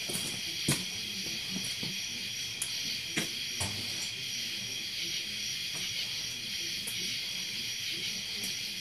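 Steady chorus of crickets, with a few short knocks in the first four seconds.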